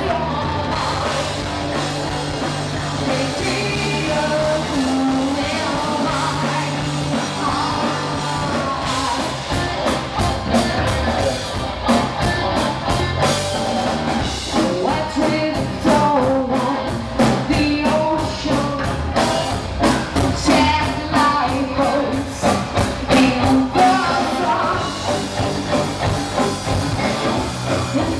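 Metal cover band playing live, a woman singing into a microphone over distorted electric guitars, bass and drums. From about nine seconds in, the drums break into fast, hard-hit beats that carry on until near the end.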